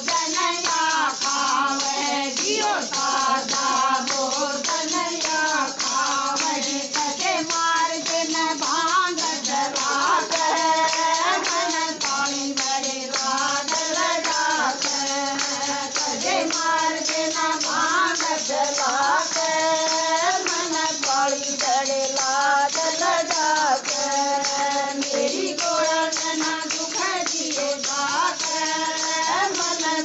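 A Hindu devotional bhajan to Shiva and Parvati: a solo voice sings a melody over steady rhythmic percussion.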